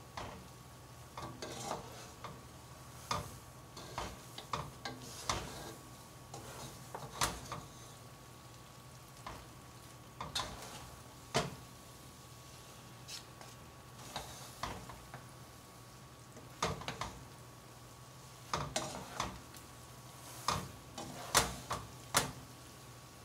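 Wooden spatulas tossing and mixing creamy spaghetti carbonara in a nonstick pot, giving irregular knocks and scrapes against the pot.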